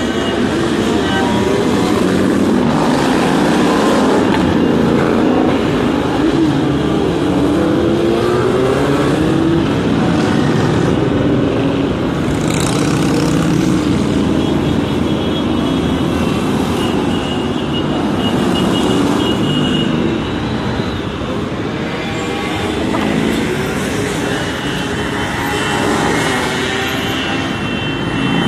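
Motorcycles riding past along a street with other traffic, their engines running and revving, rising and falling in pitch as they pass. The noise is loud and continuous, with no break.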